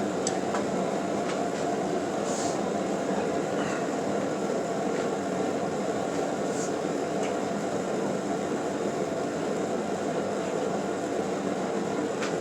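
Steady, unbroken rushing noise of a blacksmith's forge running, with a few faint light ticks.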